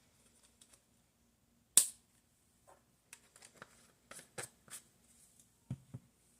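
Scattered light clicks and taps of handling, with one sharp click about two seconds in and two duller knocks near the end.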